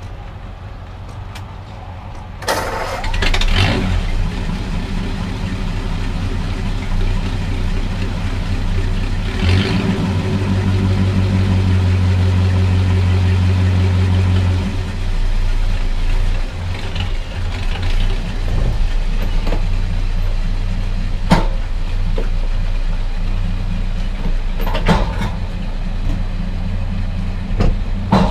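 Flathead V8 engine in a converted Ford 8N tractor coming to life about two and a half seconds in, then running. It is loudest for a few seconds in the middle and settles to a lower run as the tractor is backed off the trailer. A few sharp knocks come near the end.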